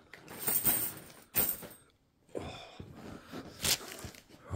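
Plastic coin bags crinkling and rustling in short bursts as they are handled, with a sharp click near the end.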